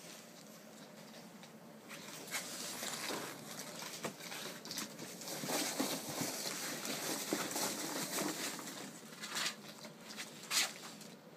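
Ferret digging and scrabbling in a box of foam packing peanuts: a steady rustling and scratching of the peanuts and cardboard, with a couple of louder knocks near the end.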